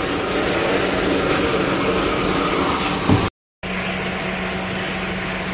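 Water running steadily from a hose into a large stainless steel bowl. The sound drops out briefly a little over three seconds in, and after that a low steady hum runs under the rushing water.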